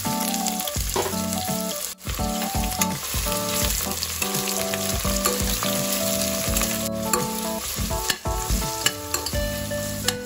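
Sliced onions sizzling steadily as they fry in hot oil in a stainless steel pressure cooker, with a steel spoon clinking and scraping against the pot as they are stirred.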